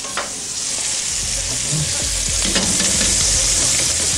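Whole chickens browning in hot butter in a pan, sizzling loudly, the sizzle growing louder about a second in, with a few light knocks of a wooden spatula against the pan.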